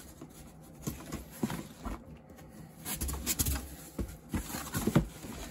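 Cardboard box flaps being pulled open and folded back, scraping and rustling, with irregular knocks as the box is handled. The sharpest knock comes near the end.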